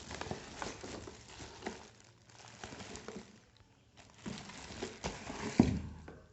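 Packaging being handled as a power drill is unboxed: irregular rustling with scattered clicks and knocks, and a louder thump about five and a half seconds in.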